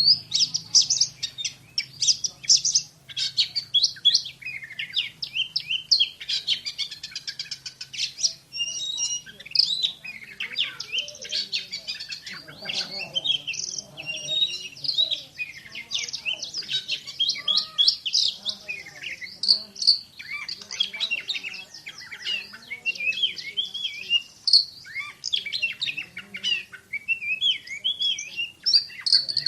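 Oriental magpie-robin (kacer) singing a fast, dense stream of sharp whistled notes and chirps with hardly a pause. This is the rapid "shooting" (tembakan) style prized in song-bird keeping.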